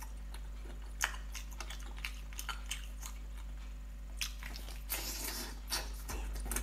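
Close-miked chewing of spicy braised octopus: irregular wet mouth clicks and smacks as the rubbery flesh is chewed, with a longer hiss about five seconds in.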